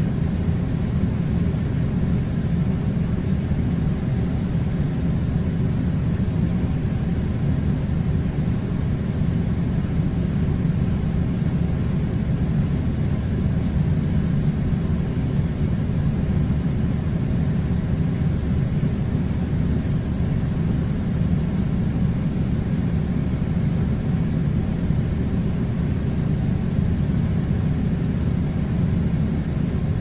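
Air conditioning running with a steady, unchanging low rumble.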